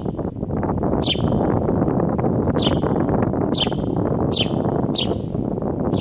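A bird giving sharp, high calls that sweep downward in pitch, five in a row, over a loud, steady rushing noise.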